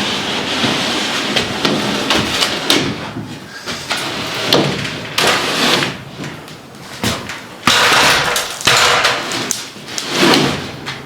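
A sheet of plywood scraping and sliding against wooden framing, with repeated knocks and bumps as it is shoved and wedged between attic stringers.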